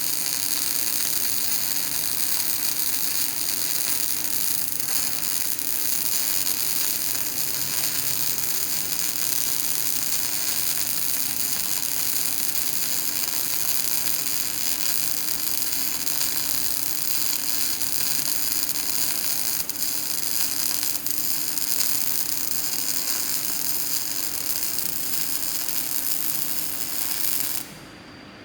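Electric welding arc burning steadily: a loud, even hiss with a constant low hum under it, cutting off sharply near the end as the arc is broken.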